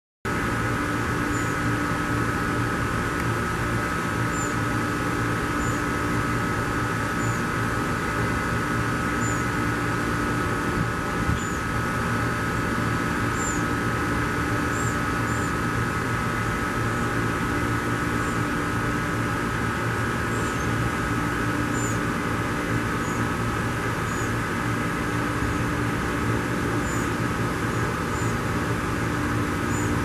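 Juvenile red-bellied woodpecker calling for its parent: short high chirps every second or two, over the loud steady hum of an air conditioner.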